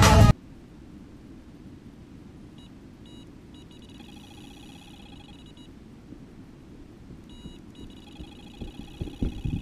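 Electronic carp bite alarm sounding faintly, first single beeps that speed up into a continuous warbling tone, twice over: a carp is taking line, a run. A steady low wind rumble on the microphone lies under it, with a few thuds near the end.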